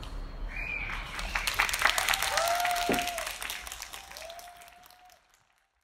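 Small audience applauding after a piano piece, with a few voices calling out over the clapping. The applause swells about a second in, then fades away to nothing shortly before the end.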